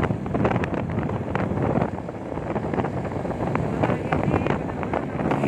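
Wind buffeting the microphone of a phone carried on a moving motorcycle, with steady road and ride noise underneath.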